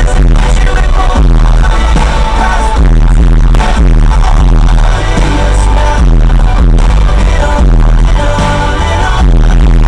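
Loud music with a steady heavy beat and deep bass.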